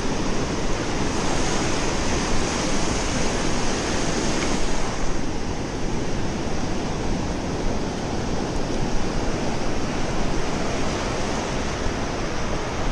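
Ocean surf washing and breaking in the shallows, a steady rush of water, with wind rumbling on the microphone.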